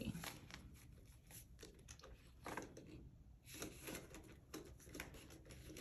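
Faint rustling and crinkling of paper banknotes and a plastic binder envelope, in short scattered bursts with a brief lull about three seconds in, as bills are counted off a stack and worked into the envelope.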